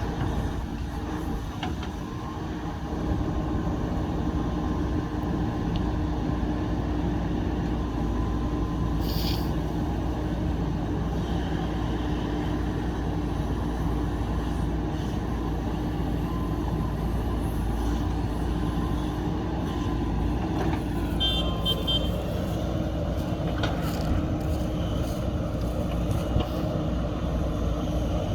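Heavy diesel engine of a JCB backhoe loader running steadily, with a brief hiss about nine seconds in and a few short high tones a little past twenty seconds.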